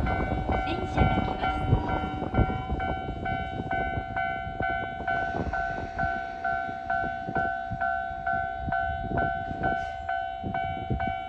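Japanese level-crossing alarm ringing its steady electronic ding, about two strikes a second, while a Keisei 3000-series electric commuter train runs past. The train's rumble and wheel clacks are loudest in the first seconds and then ease.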